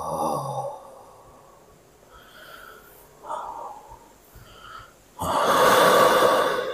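A man's low groaning voice trailing off, then a few faint breaths, and a long, loud breath out starting about five seconds in.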